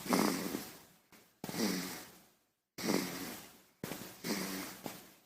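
Baby snoring: four soft snores about one and a half seconds apart, each starting with a low buzz and fading away over about a second.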